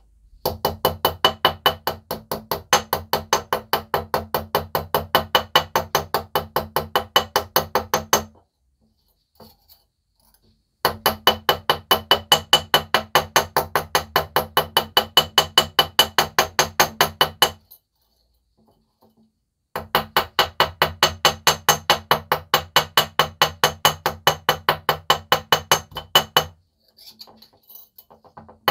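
A workshop tool on metal making rapid, even strokes, about four or five a second with a steady ringing tone, in three runs of about seven seconds with short pauses between them.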